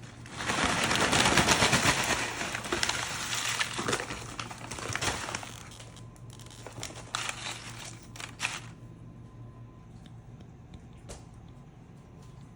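Tortilla chips crackling and crinkling as they are poured out of their bag, then scattered clicks as the last chips drop and settle.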